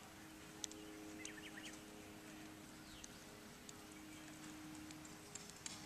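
Near silence: faint outdoor background with a steady low hum, a few faint ticks and a couple of brief high chirps.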